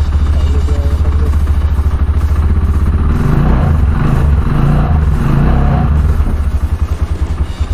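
Rusi Sigma 250 motorcycle engine running at idle just after starting, fuel only just reaching it. It picks up briefly in the middle as the throttle is blipped, then settles back to idle.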